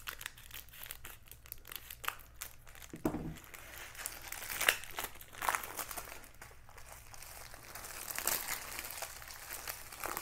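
Scissors snipping into a clear plastic sleeve, then the thin plastic crinkling and crackling in irregular bursts as it is pulled open by hand.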